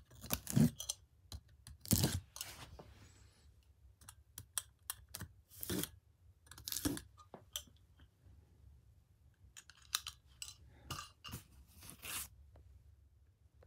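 Utility knife slitting the packing tape on a cardboard box: a string of short, irregular cutting and tearing strokes against the cardboard.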